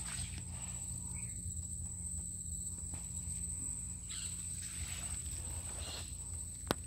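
Insects droning in the mangroves: a steady, high-pitched, thin whine over a low rumble, with a single sharp click near the end.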